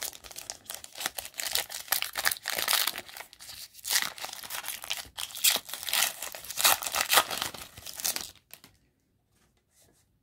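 The foil wrapper of a Diamond Kings baseball card pack being torn open and crinkled by hand: a dense run of crackles and rips that stops about eight and a half seconds in.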